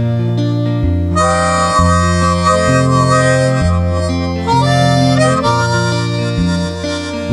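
Harmonica playing the instrumental intro of a song, in long held notes and chords over a low backing line whose notes change about once a second.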